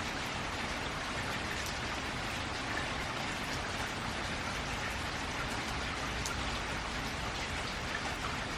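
Steady rain pattering on a metal roof, with scattered individual drops ticking through the even hiss.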